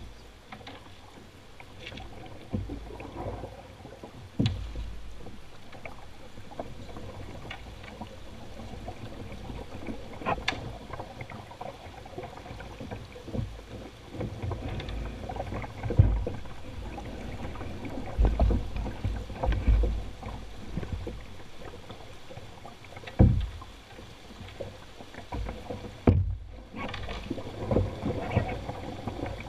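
A canoe being poled through a shallow, rocky riffle: rushing river water with irregular knocks and clunks as the pole strikes stones and the canoe, and some low thumps.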